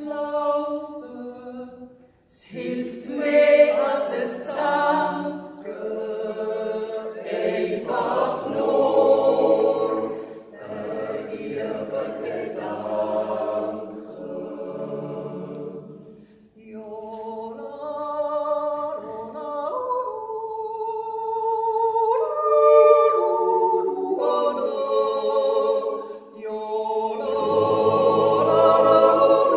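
Mixed Swiss yodel choir of men's and women's voices singing a cappella in harmony, a wordless yodel refrain in long held phrases with brief pauses between them.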